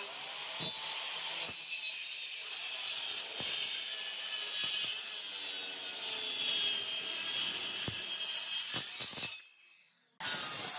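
Handheld circular saw running along a guide rail, ripping through a thick, partly rotted wood slab with a steady, mostly high-pitched cutting noise. About nine seconds in it fades out, and after a short silent gap the sawing starts again abruptly.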